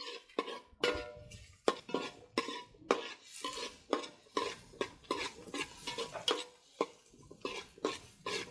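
Slotted metal spatula scraping and knocking against a metal pot while stirring diced onions in melted butter, about two strokes a second, many with a short metallic ring from the pot.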